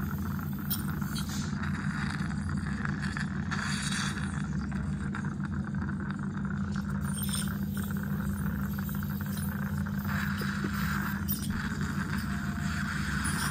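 Dental scaling: an ultrasonic scaler and a saliva ejector running steadily together, a constant low hum under the hiss of water spray and suction, with a few light ticks of the scaler tip against the teeth as tartar is removed.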